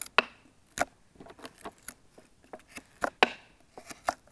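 Magnusson Swedish army knife's Scandi-ground blade cutting and shaving dry wood: a string of short cutting strokes and sharp clicks, loudest a little under a second in and again about three seconds in.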